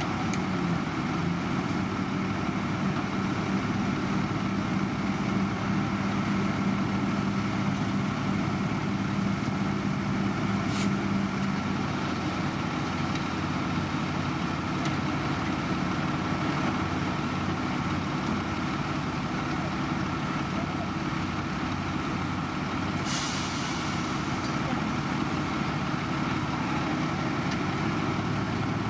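Heavy diesel engines of road construction machinery running steadily, with a short burst of hiss about two-thirds of the way through.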